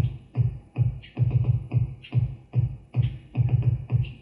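Synthesized electronic bass drum from Reason's ID8 electronic drum kit playing back a MIDI drum part: a run of deep, punchy thumps about two to three a second, some falling in quick doubles.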